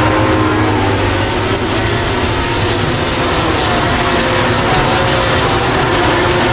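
Racing motorcycle engines running at high revs: a continuous loud drone whose pitches slide up and down.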